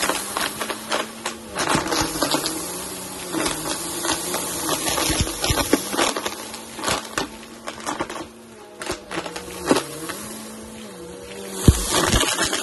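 Bissell Helix upright vacuum running on carpet, its motor hum stepping up and down in pitch as it is pushed and pulled, while red lentils are sucked up with a steady rattle of small clicks. A single sharp knock sounds near the end.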